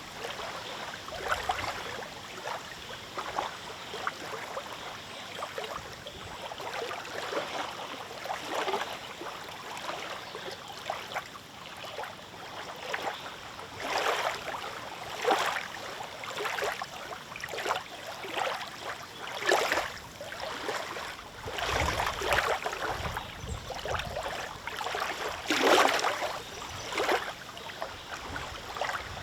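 Small lake waves lapping and splashing in irregular surges about a second apart, with a low wind rumble on the microphone partway through.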